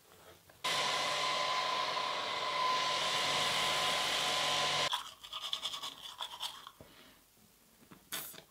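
Handheld hair dryer blowing steadily with a whine, starting suddenly and cutting off after about four seconds. Then rapid scrubbing strokes of a toothbrush on teeth, and a short rush of noise near the end.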